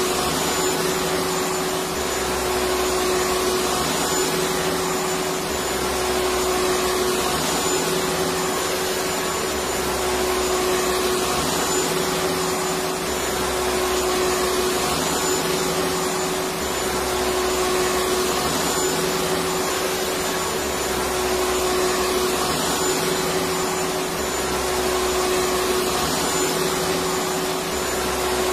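Electric vacuum cleaner running steadily: an even rushing hiss of air with a steady motor whine, and a faint low throb that comes and goes every couple of seconds.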